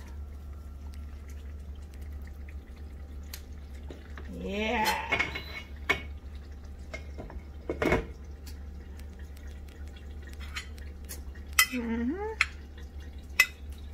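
Spoons knocking and scraping against a ceramic plate and a stew pot while stew is served over rice: a few scattered sharp clinks, the loudest about eight seconds in. A steady low hum runs underneath.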